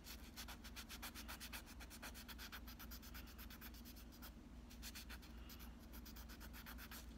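A fingernail being smoothed with a second-grit nail buffer stick (fine abrasive sanding paper): faint, quick back-and-forth rubbing strokes, about six a second.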